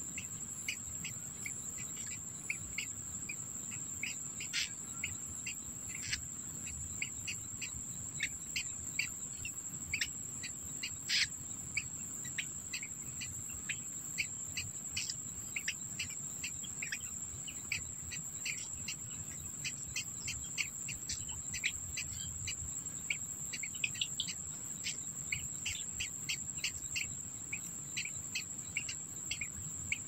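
Steady high-pitched insect drone, like crickets or cicadas, with many short, irregular chirps scattered throughout.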